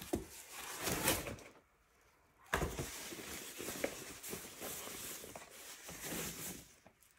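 A tracing light pad being unpacked: its cardboard box and plastic sleeve sliding and rustling as it is handled, with a sharp knock about two and a half seconds in.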